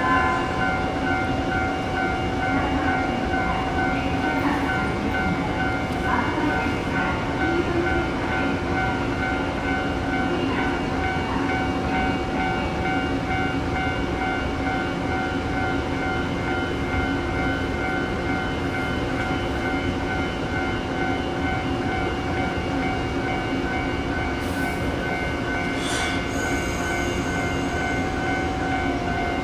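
Steady electrical hum and whine of an electric train standing at the platform, several unchanging tones over a constant rumble. Near the end there is a brief high hiss, and a higher whine joins in.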